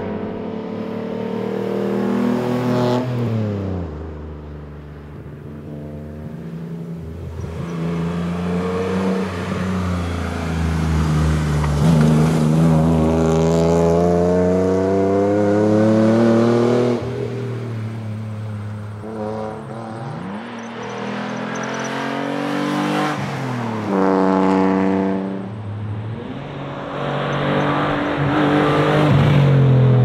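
Alfa Romeo GTV rally car's engine under hard acceleration as the car drives through bends at stage speed. The pitch climbs through the gears several times, dropping at each upshift or when the driver lifts off for a corner.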